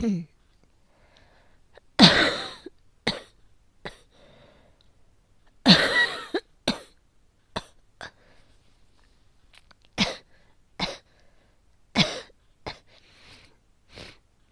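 A woman coughing from asthma, in fits that won't stop: two loud, harsh coughs about 2 and 6 seconds in, each followed by shorter, smaller coughs at uneven intervals.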